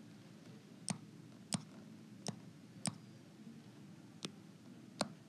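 Six sharp taps on an iPad's glass screen, spaced unevenly between about half a second and a second and a half apart.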